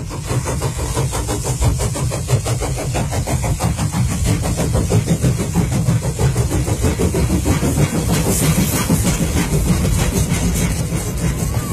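Train running: a steady low rumble with a fast, even rhythmic pulse.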